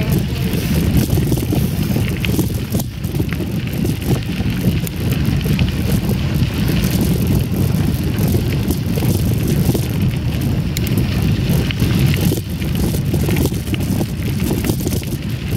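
Wind rushing over the microphone and mountain bike tyres rolling over a gravel trail: a steady low rumble, with small rattles and clicks from the bike scattered through it.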